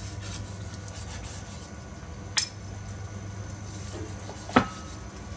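A kitchen knife slicing through a pan-fried pigeon breast held in metal tongs on a wooden cutting board, a quiet scraping cut, with two sharp knocks on the board, about two and a half and four and a half seconds in. A low steady hum runs underneath.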